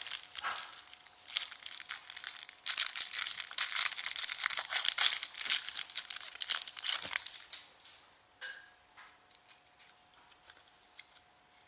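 Plastic packaging of a box of Panini Absolute basketball cards being torn open and crinkled, a dense crackling that lasts about seven and a half seconds and then gives way to a few small clicks.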